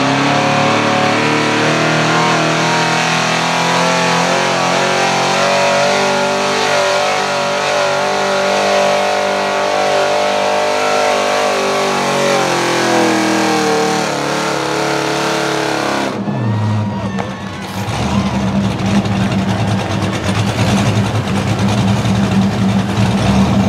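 Chevrolet Silverado pickup's engine held at high revs under load as it drags a weight-transfer sled, the revs sagging as the sled bears down. About 16 seconds in the engine drops off sharply to a low idle as the pull ends, and it idles amid background noise after that.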